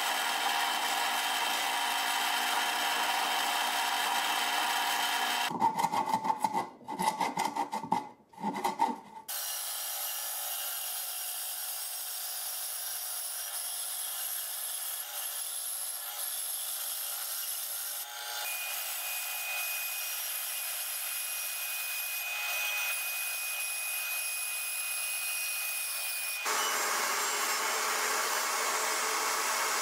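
Woodworking power tools cutting wood in turn: a drill press boring into a board with its motor running steadily, then several short loud bursts with brief gaps about six seconds in. A band saw then runs and cuts through the wood, with a thin steady whine joining it past the middle, and near the end another bench machine takes over with a fuller, lower running sound.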